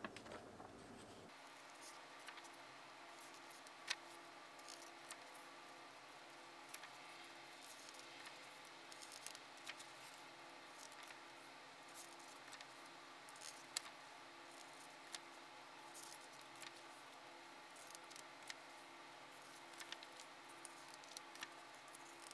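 Faint scattered clicks and taps of toy packaging and plastic parts being handled, with two louder clicks about 4 and 14 seconds in, over a faint steady hum.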